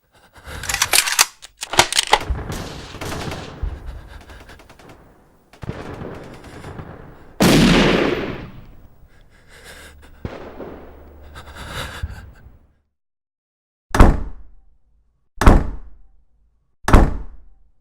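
A run of gunfire-like shots and impacts, with a loud blast about seven seconds in. Three short heavy hits about a second and a half apart come near the end.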